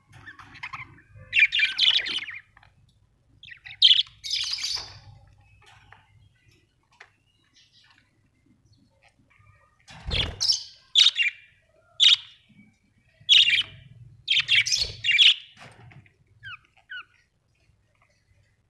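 Budgerigars chirping and squawking in short bursts of high-pitched calls, with a lull of a few seconds midway before a busier run of chirps. A faint low hum sits underneath.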